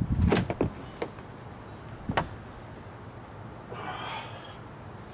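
Knocks and thuds of heavy gear being shifted in the cargo area of a van, loudest at the start, then a short scrape about four seconds in.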